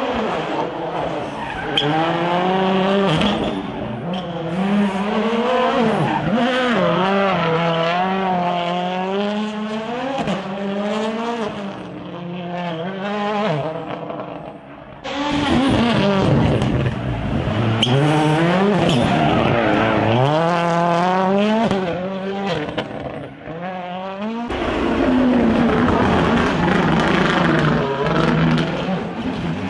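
2021 World Rally Car engines (1.6-litre turbocharged four-cylinders) revving hard, rising and falling as the cars brake, change gear and accelerate through a tight section. The sound cuts off abruptly and starts again twice, about halfway through and about five seconds before the end, across separate passes.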